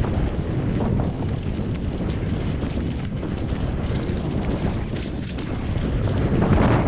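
Wind rushing over a bike-mounted camera's microphone as a mountain bike rolls over rocky trail, with constant rattling and clacking from the bike and the rough ground. It grows louder about six seconds in as speed picks up.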